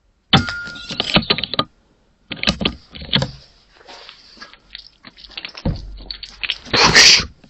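Irregular clicking and rattling in quick clusters, with a louder, noisier rush about seven seconds in.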